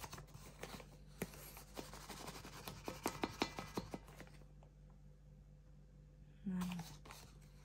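A plastic bag of rice flour crinkling as a plastic measuring scoop digs into it and scrapes through the flour, with many small scratchy clicks and taps. The crinkling dies down for a couple of seconds past the midpoint, then picks up again near the end.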